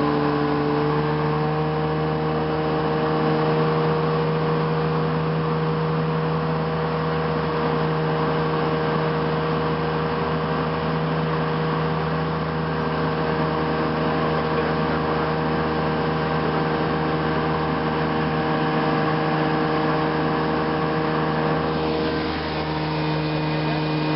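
Airplane's engine and propeller droning steadily, heard from inside the cabin, with a slight change in pitch near the end.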